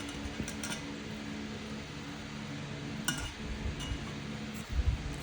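Cutlery clinking against dishes a few times while someone eats, with a few louder low thumps near the end over a steady low hum.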